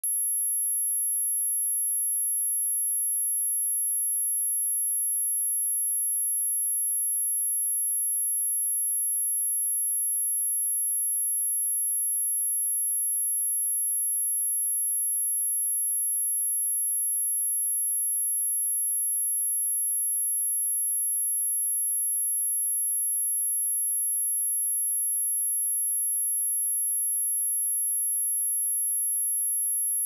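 A pure 11,196 Hz sine-wave test tone: one steady, very high-pitched whine that holds unchanged at a constant level, used for testing speakers or shaking water and dust out of them.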